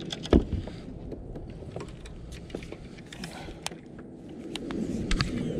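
Handling noise from a baitcasting rod and reel in a kayak: one sharp knock about a third of a second in, then scattered light clicks and ticks, over a steady low rumble.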